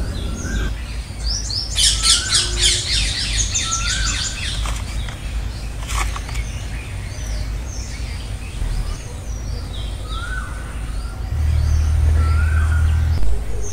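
Several birds chirping and calling, with short repeated rising calls and a quick run of many chirps about two seconds in. Under them runs a low rumble, which is stronger for about two seconds near the end.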